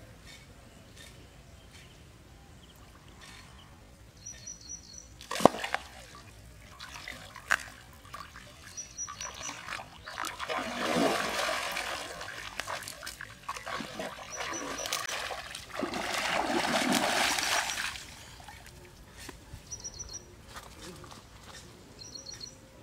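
Water splashing in a shallow pond as a hooked fish is hauled in on a hand-held rod, in two main spells about ten and sixteen seconds in. A single sharp knock comes about five seconds in, and brief high chirps recur throughout.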